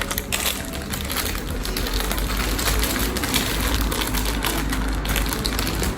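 Dense, rapid clicking and rustling of small objects and packaging being handled.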